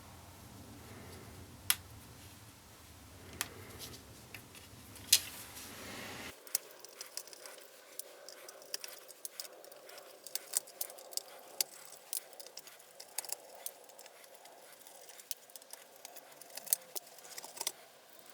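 Small metal parts and tools clicking and clinking as a vintage Kay E-100 electric guitar's hardware is taken apart. A few sharp, separate clicks come in the first seconds, then a long run of quick small clicks and rattles.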